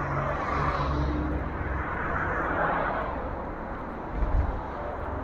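A vehicle passing by on the road, its noise swelling and then fading over about three seconds, with a short low thump near the end.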